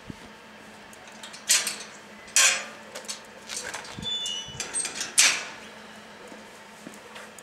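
Wrought-iron garden gate being opened and shut: three loud metallic clanks of the gate and its latch, with lighter rattles between them and a short high squeak about four seconds in.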